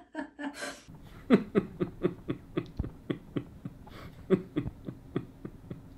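A man laughing in a long run of short chuckles, about three or four a second, each falling in pitch.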